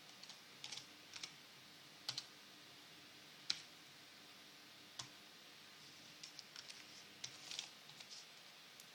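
Faint, scattered keystrokes on a computer keyboard as a password is typed in again to confirm it, with a quicker run of taps in the last few seconds.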